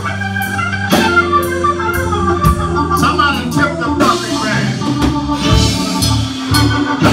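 Live electric blues band playing: a Nord Electro stage keyboard on a Hammond-style organ sound holds chords over bass and drum kit.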